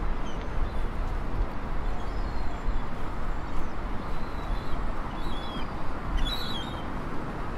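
Steady outdoor city noise with a low rumble, and a few short, high bird calls about five to six and a half seconds in.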